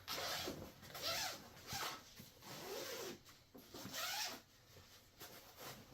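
Zipper on a fabric dog bed cover being pulled along in about five short rasping strokes, the last ones coming a little over four seconds in, then light fabric rustling.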